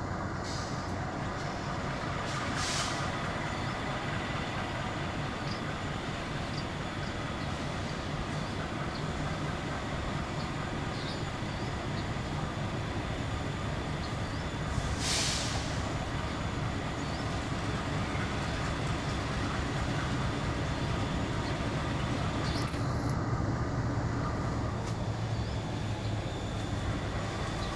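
Diesel-electric locomotive hauling a passenger train past at low speed, its engine giving a steady low rumble that grows louder near the end as the locomotive draws close. Two short hisses come about three seconds and fifteen seconds in.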